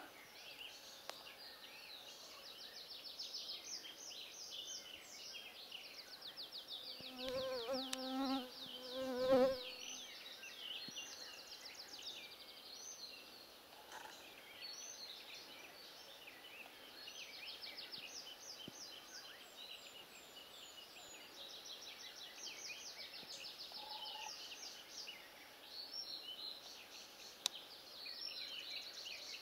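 A flying insect buzzing close past the microphone, a wavering drone heard in two passes about seven to nine and a half seconds in, the loudest sound here. Throughout, thin high-pitched chirping trills repeat in quick series.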